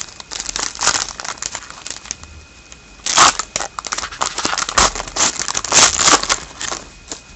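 Foil wrapper of a hockey card pack crinkling and tearing as it is opened, with a run of rustles and sharp crackles that is busiest from about three to seven seconds in.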